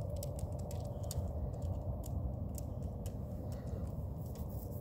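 Steady low industrial roar from a casting plant's equipment, with a faint held tone above the rumble and scattered light ticks; the roar is one the recorder puts down to failing equipment.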